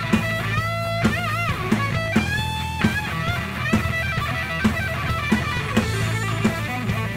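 Live instrumental rock from a guitar, bass and drums trio: a Les Paul-style electric guitar plays a distorted lead with string bends and vibrato over a steady bass and a drum beat of about one hit every 0.7 seconds.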